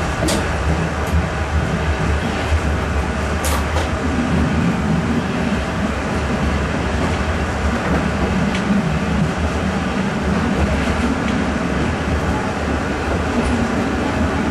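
Electric multiple unit running along the line: a steady rumble of wheels on rail with a low drone. A few sharp clicks stand out, the strongest about three and a half seconds in.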